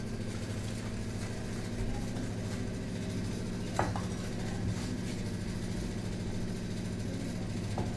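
Steady low mechanical hum, like a running motor, with a sharp clink of steel kitchenware about four seconds in and fainter clinks near the start and end.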